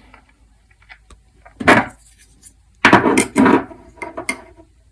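Handling noise from two folding pocket knives with G10 handles as they are held and rubbed together. There is a short scraping rustle about two seconds in, a longer pair around three seconds in, and a smaller one near the end.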